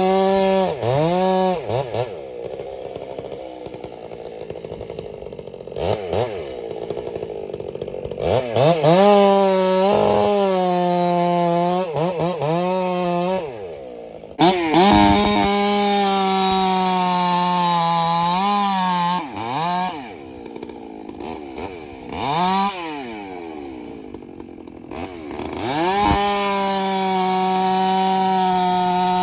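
Ported Stihl MS 661 two-stroke chainsaw cutting wood: it is held at full throttle through the cuts, drops back to idle twice between them, and is revved up again with quick throttle blips before each new cut.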